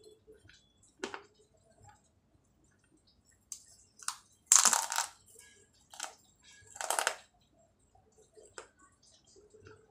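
Dried clay pot pieces being bitten and crunched between the teeth: a few short, sharp crunches, the loudest a little over four seconds in and another about seven seconds in, with small clicks between.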